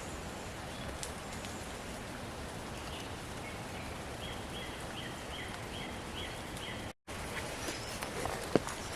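Steady outdoor background hiss of wet forest, with a bird calling a run of about eight short, evenly spaced high notes in the middle.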